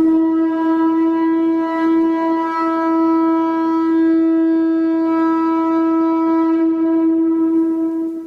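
Conch shell trumpet blown in one long, steady note rich in overtones, stopping near the end.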